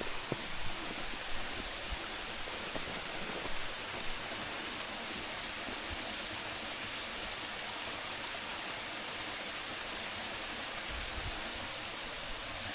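Duruitoarea waterfall: falling water rushing with a steady hiss, with a few soft low thumps in the first few seconds.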